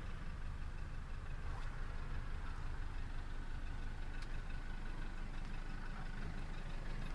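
Scania 124L 470's inline-six diesel engine idling steadily, heard from inside the truck cab as a low, even rumble.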